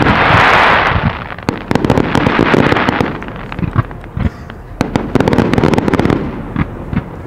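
Aerial fireworks display: a rapid string of shell launches and bursts from shells up to 3 inches, with a dense hiss or crackle in the first second and again around two seconds in.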